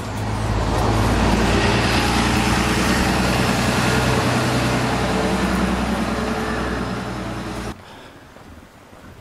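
Route bus's diesel engine running close by: a steady, loud hum with even overtones. The sound cuts off suddenly near the end.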